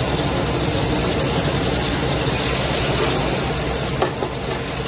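Metal-cutting machine and surrounding workshop machinery running with a steady, dense clatter and hum, with one sharp knock about four seconds in.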